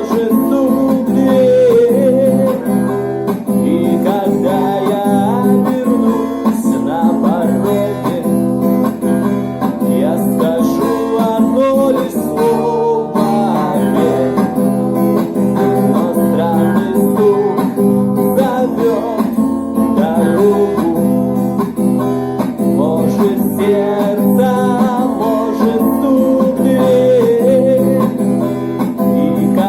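Acoustic guitar strummed in a steady rhythm, playing out the instrumental ending of the song after the last sung line.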